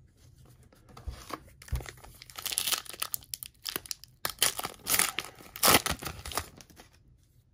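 Foil hockey-card pack wrapper being torn open and crinkled by hand as the cards are pulled out: a run of irregular rips and crackles, loudest about three-quarters of the way through.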